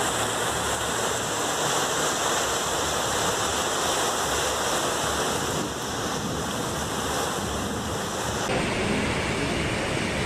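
Heavy storm rain and rushing floodwater pouring through the streets, a steady roar of water. About eight seconds in the sound turns duller.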